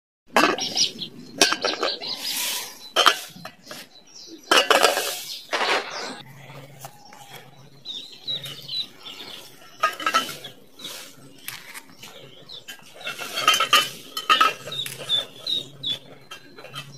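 A chicken egg knocking and clinking against a stainless steel bowl as it is handled, sharp knocks mostly in the first few seconds. Later a broody hen gives low, even clucks, a little under one a second.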